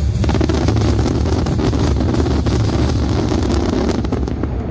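Fireworks show music over loudspeakers with a heavy, steady bass, overlaid from just after the start with a dense crackle of firework bursts that thins out near the end.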